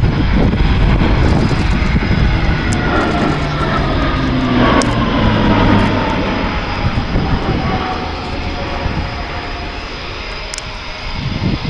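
Leonardo C-27J Spartan's twin turboprops (Rolls-Royce AE 2100 engines with six-bladed propellers) at display power as the aircraft banks past. The propeller whine falls steadily in pitch as it passes and moves away, and the sound fades somewhat in the last few seconds.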